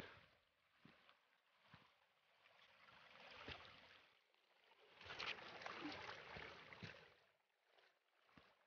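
Faint splashing and scattered steps on wet gravel in a shallow trail stream, coming and going in short patches with small clicks.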